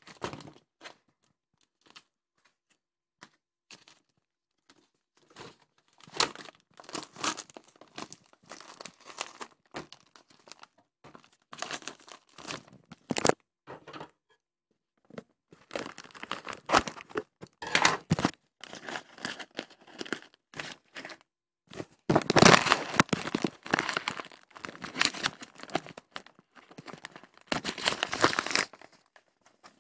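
Parcel packaging being torn open and crumpled by hand, in irregular bursts of tearing and crinkling with short pauses between.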